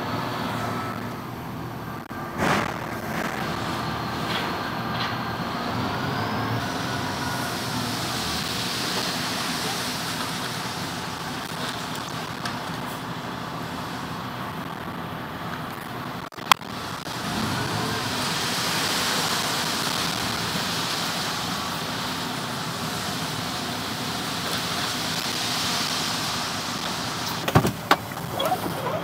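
Truck engine running steadily while its hydraulic tipper raises a container of cardboard, with a whine that glides up in pitch a few seconds in. A few knocks come near the end.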